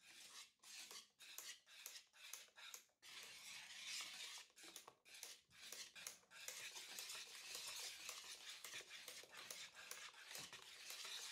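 Wire balloon whisk stirring thick cake batter in a bowl, the wires scraping and swishing through it. It goes in separate strokes about twice a second at first, then quicker, near-continuous stirring from about three seconds in.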